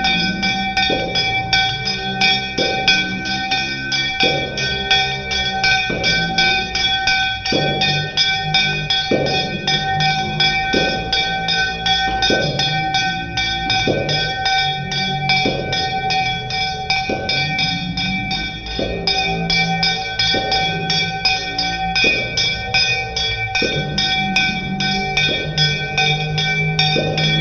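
A bell rung without pause during an aarti, its ringing tones held steady throughout, with hands clapping and voices singing a repeating phrase in time.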